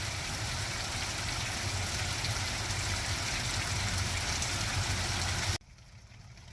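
Rain shower falling, a steady hiss with a low rumble underneath. It cuts off suddenly near the end, dropping to a much fainter hiss.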